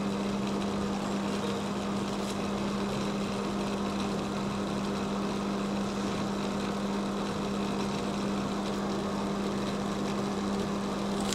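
Steady low hum with one constant tone, unchanging throughout.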